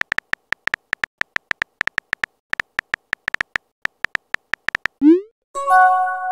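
Simulated phone-keyboard clicks, about six a second with brief pauses, as a text message is typed in a chat app. About five seconds in comes a quick rising swoosh as the message is sent, then a short electronic chime of several tones.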